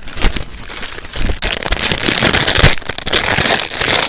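Plastic packaging being crinkled and crackled loudly in the hands as a squishy toy is unwrapped, in dense rustling bursts with a brief lull about a second and a half in.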